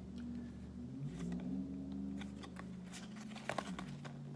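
Trading cards being handled and flipped through, with a few soft clicks and slides of card stock over a low steady hum.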